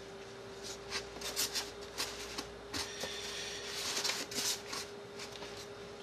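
Soft white wrapping paper rustling and crinkling in irregular bursts as paper-wrapped matsutake mushrooms are handled and packed into a paper-lined styrofoam box. A faint steady hum runs underneath.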